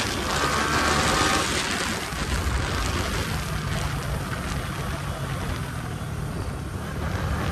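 Yamaha R15's single-cylinder engine running under way, with heavy wind rush over the microphone. The wind noise eases over the last few seconds as the bike slows.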